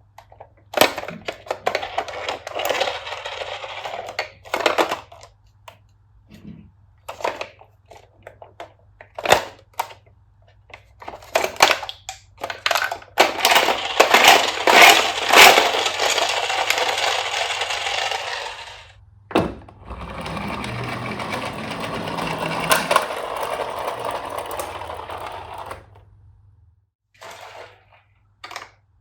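Toy fire trucks clattering and rolling along a wooden slope: scattered clicks and knocks, with longer stretches of rattling roll from about eleven to nineteen seconds in and again from about twenty to twenty-six seconds.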